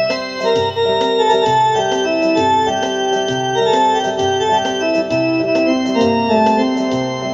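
Instrumental music: held chords over a low bass note that repeats about once a second, with light ticks of percussion.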